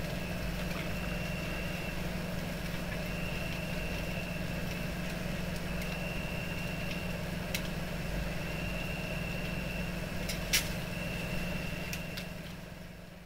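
A steady low mechanical hum with a high whine that comes and goes every second or so, and a few sharp cracks, the loudest about ten and a half seconds in. It all fades out near the end.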